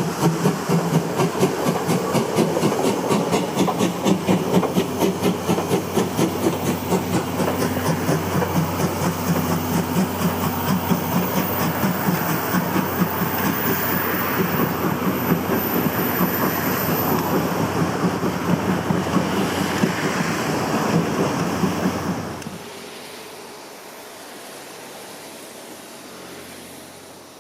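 C11 steam tank locomotive and its train running past, a fast rhythmic beat of exhaust and wheel clatter over the rails with steam hiss. The sound cuts off abruptly about 22 seconds in, leaving a much quieter background.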